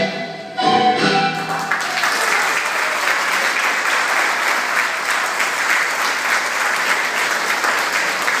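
The final notes of Peruvian folk dance music end about a second and a half in, and the audience breaks into steady applause that carries on.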